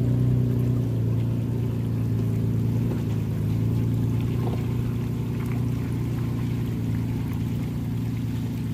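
Pickup truck engine running steadily at low revs on an off-road trail, an even low drone with no revving.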